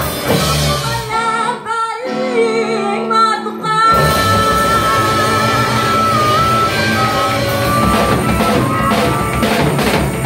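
Live rock band playing: electric guitars and a drum kit. The drums and low end drop out for about two seconds, leaving the guitars ringing, then the full band crashes back in about four seconds in.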